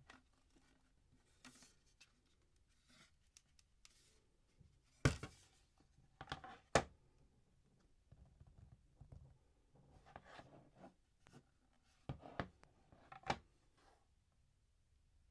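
Quiet handling noises: a few sharp taps and clicks in two clusters, about five to seven seconds in and again twelve to thirteen seconds in, with soft rubbing and scratching between.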